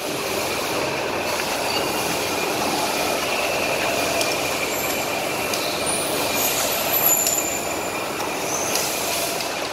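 Factory machine-shop noise from running metalworking machines such as lathes: a steady mechanical din with a thin high whine.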